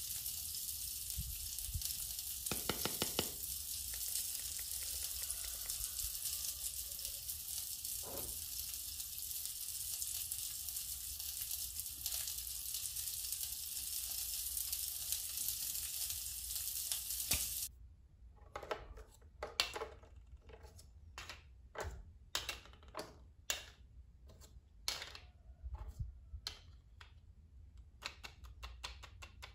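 Steady frying sizzle from a toy barbecue grill, cutting off abruptly a little over halfway through. After it come irregular light clicks and knocks of plastic toy food and trays being handled.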